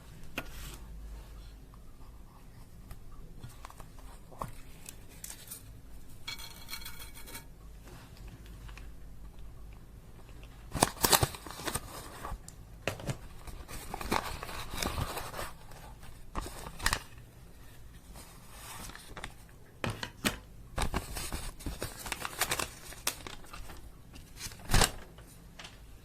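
Close-up handling of makeup and slime: crackling, scraping and tearing sounds in bursts, with sharp clicks, busiest in the middle and again near the end.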